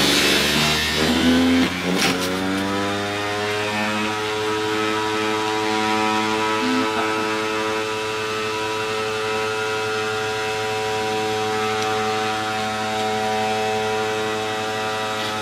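Cuisinart 1000-watt juice extractor motor running. It is rough and labouring for about two seconds, then its whine rises in pitch and settles into a steady high hum as it spins free with the produce used up.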